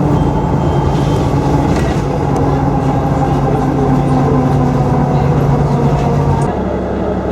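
A steady low mechanical drone with a pitched hum, like a running engine or motor, which shifts down about six and a half seconds in.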